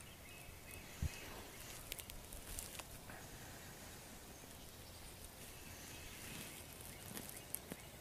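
Quiet woodland background with scattered faint rustles and clicks, like something moving through dry leaves, and one low thump about a second in.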